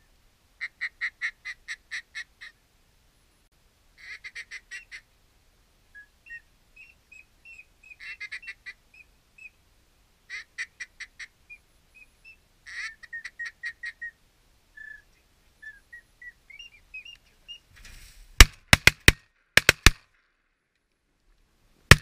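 Runs of duck quacks, each a quick series of short quacks falling away, with a few thin whistled notes between them. About eighteen seconds in comes a rapid volley of about six shotgun blasts over two seconds, and one more shot at the very end.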